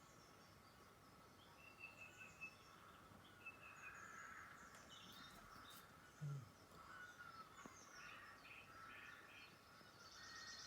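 Faint songbirds chirping and trilling, played through a laptop's speakers from a Cat TV bird video. A brief soft thump about six seconds in.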